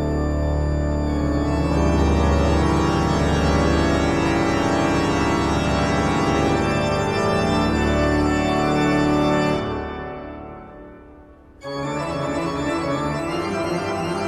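Organ music playing sustained chords. It fades out about ten seconds in, and a new organ passage starts abruptly a couple of seconds later.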